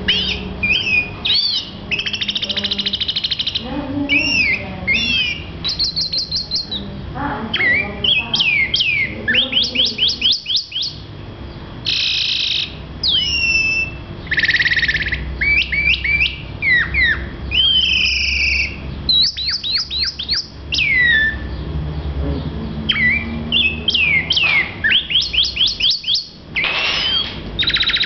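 Male black-backed grosbeak (rey del bosque) singing a long, varied song: quick runs of downslurred whistled notes alternating with buzzy, rattling phrases, separated by short pauses.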